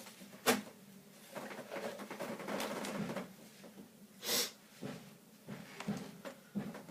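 Small clicks and rustling as small pieces of toothbrush plastic are handled, with a short, sharp breathy hiss about four seconds in.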